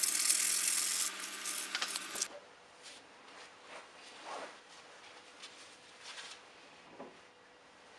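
A scratchy rubbing of a pad worked by hand over the wooden knife handle, over a steady hum, stopping abruptly about two seconds in. After that only faint room sound with a few soft handling noises.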